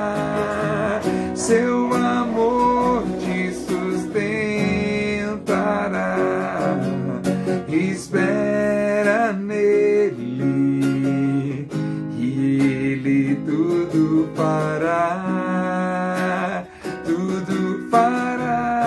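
Acoustic guitar strummed as accompaniment, with a man's voice singing drawn-out, wavering notes without words that come and go every few seconds.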